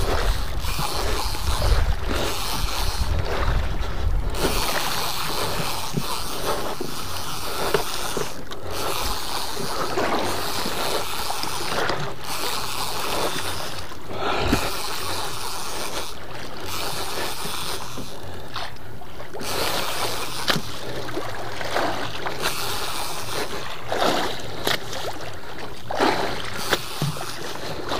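Wind and sea noise on a small outrigger fishing boat, with wind buffeting the microphone in the first few seconds and scattered small knocks and splashes, while a conventional fishing reel is cranked to wind in a bottom-fishing line.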